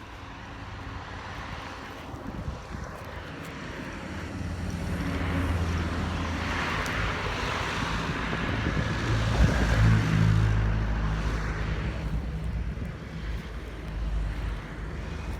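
Car engine running while driving on a rough country road, with wind and road noise. It grows louder through the middle and eases off near the end.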